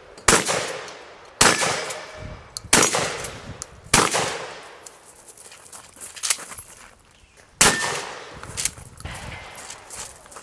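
Gunshots fired one at a time during a multigun stage: five loud shots about a second and a quarter apart, then a gap of a few seconds before another, with fainter cracks between.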